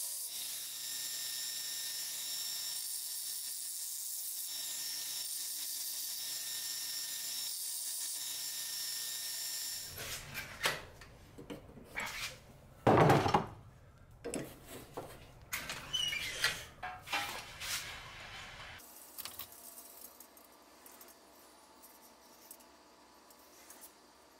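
Belt grinder running with steel held against the moving belt, a steady hiss with a high whine, as the taper is ground into a hatchet's edge; it stops about ten seconds in. Then scattered metal clanks and knocks of tongs handling the hot hatchet at a heat-treat oven, the loudest a short clatter about three seconds after the grinding ends.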